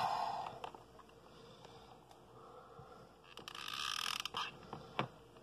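Handheld hot glue gun in use: faint clicking and creaking of the trigger's ratchet feed as it pushes the glue stick through. There is a brief rustle about three and a half seconds in and a sharp click near the end.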